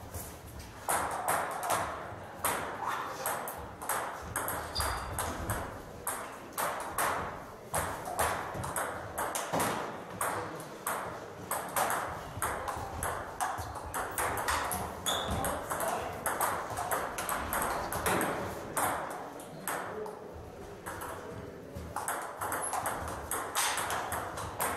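Table tennis rallies: ping-pong balls clicking off rubber-faced paddles and bouncing on the tables in a quick, irregular patter, with more than one table in play.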